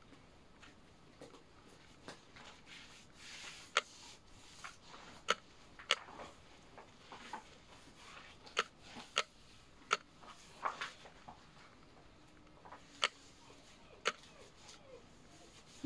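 Irregular sharp clicks and light taps, about a dozen scattered unevenly, with faint soft scraping between them.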